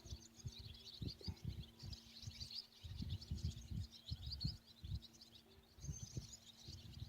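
Small birds chirping continuously in quick twittering runs, over irregular low thumps and rumbles, with a faint steady low hum underneath.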